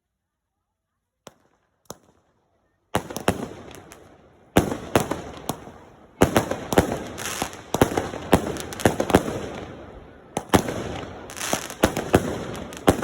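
A firework display going off: after a near-silent start with two faint pops, fireworks burst in quick succession from about three seconds in, with sharp bangs and cracks over continuous crackling.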